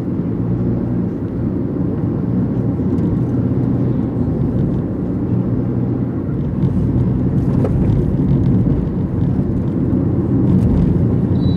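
Steady road and engine noise of a moving car heard from inside the cabin: an even low rumble.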